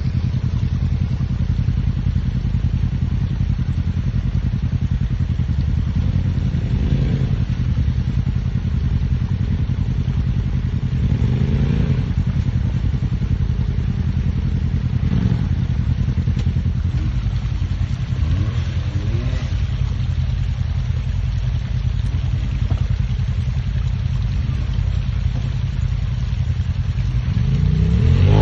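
Side-by-side UTV engines running steadily under load, revved up in several rising bursts as a machine climbs a rocky, rutted trail, the loudest rev near the end.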